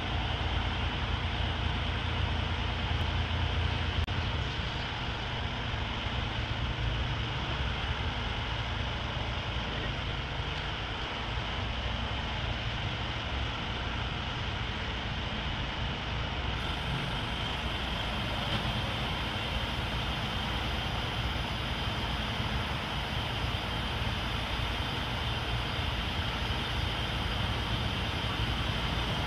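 Steady low rumble of the crane truck's diesel engine running to power the hydraulic crane, under an even outdoor hiss.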